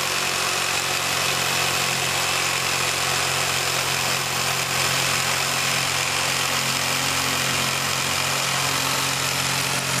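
Jigsaw running steadily, its blade cutting through a wood-veneer cabinet panel along a marked line, with an even buzz and a steady low hum.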